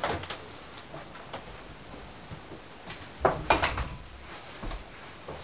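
Scattered clicks and knocks of people moving about a small room, loudest a pair of sharp knocks a little over three seconds in.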